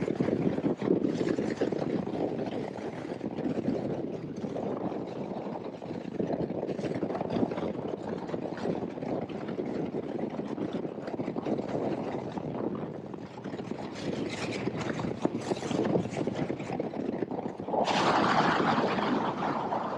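Bass boat running at top speed behind a Mercury 300R four-stroke outboard: a steady rush of wind and water with the motor running underneath. Near the end the rush turns suddenly louder and brighter.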